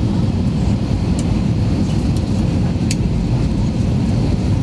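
Steady low rumble of an Airbus A321's engines and airflow heard inside the passenger cabin during the descent to land, with a few faint ticks.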